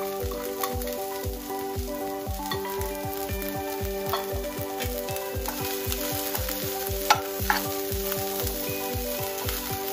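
Chopped vegetables sizzling in a steel pan of hot ghee, stirred with a metal spatula, with a couple of sharp clinks of the spatula on the pan about seven seconds in. Background music with a steady beat plays throughout.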